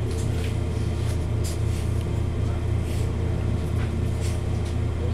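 Steady low rumble and hum inside a Southeastern commuter train carriage on the move, with faint short ticks and rattles now and then.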